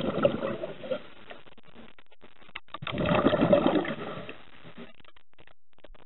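Scuba diver's exhaled breath bubbling out of a regulator underwater: two bursts of bubbles, one at the start and another about three seconds in, each lasting a second or so, with faint clicks between.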